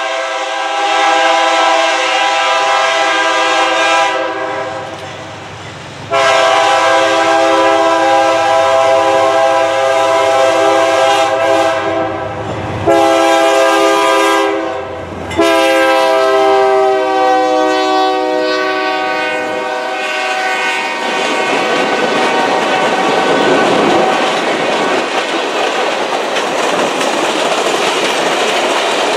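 Air horn of a GE B40-8W diesel locomotive sounding the grade-crossing signal as the train passes: two long blasts, a short one, and a final long blast that drops slightly in pitch as the locomotive goes by. After the horn stops, about 21 seconds in, the wheels of the stainless-steel passenger cars clack and rumble over the rails.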